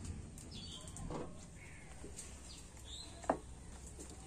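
Small birds chirping, short calls scattered through, over a low steady background noise, with a single sharp click about three seconds in.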